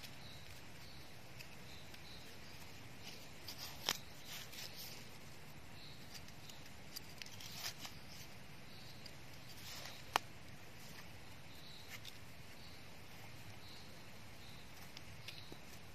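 Hands picking egg-stage Amanita mushrooms from dry leaf litter: faint rustling of dry leaves and soil with a few short sharp snaps and clicks, the sharpest about ten seconds in. Soft high chirps repeat in the background.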